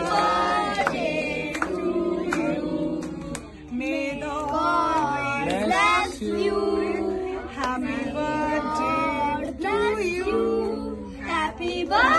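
A song: voices singing over steady instrumental backing.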